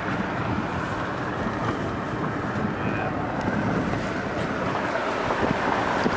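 Steady noise of a car driving, heard from inside the cabin: an even hiss of road and engine with some wind on the microphone.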